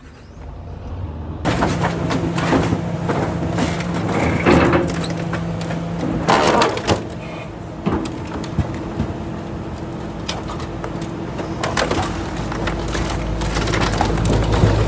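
Excavator's hydraulic cutter shearing through a race car: the machine's engine runs under load while the car's metal body crunches, cracks and tears in repeated sharp snaps. A low rumble builds near the end.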